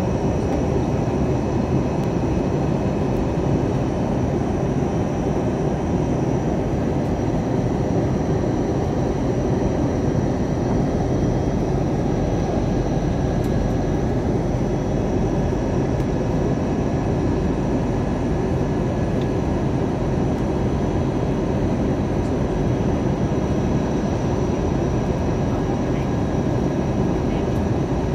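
Steady cabin noise inside an Airbus A321 airliner on approach: the even drone of the engines and rushing airflow, heaviest in the low range, with a few faint steady high tones over it.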